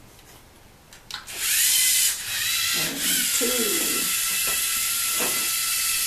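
LEGO Mindstorms robot's electric drive motors starting up about a second in with a quick rising whine, then running with a steady high-pitched whine as the robot drives out from base.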